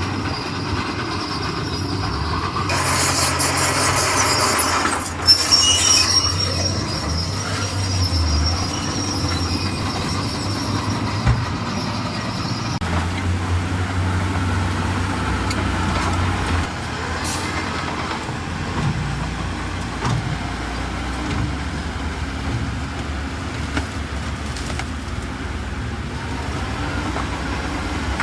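Heavy diesel earthmoving machinery running steadily, with a loud hiss of air for about two seconds a few seconds in, a sharp clank just after it, and a thin high squeal that stops about halfway through.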